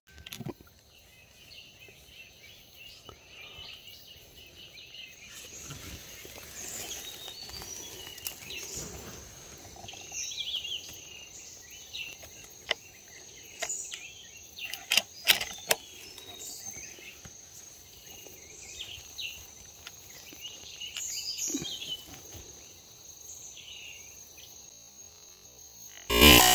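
Forest ambience: small birds chirping in short scattered calls over a steady high insect drone, with a few sharp clicks near the middle.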